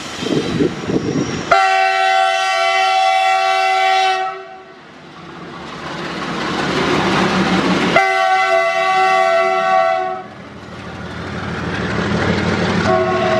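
WDG 4G diesel locomotive sounding its horn, a chord of several steady tones, in two long blasts of about three and two seconds, with a third beginning near the end. Between the blasts the engine and the passing train's wheels on the rails swell as it accelerates.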